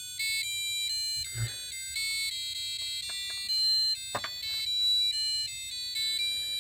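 An electronic buzzer plays a simple melody of short, high-pitched beeping notes that step up and down in pitch: the intruder alarm has been set off by light reaching its sensor. There is a sharp click about four seconds in.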